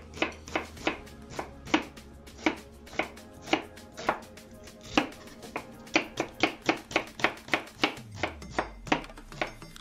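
Chef's knife slicing a white onion and knocking on a wooden cutting board: a run of sharp chopping knocks, uneven at first and speeding up to about three or four a second for the last few seconds.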